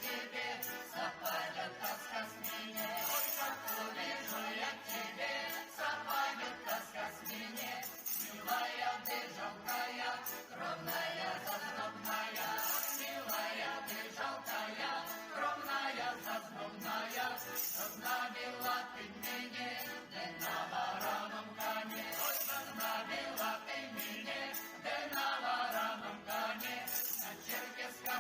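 A Russian folk ensemble playing a dance tune with a steady, regular beat and percussion on each stroke.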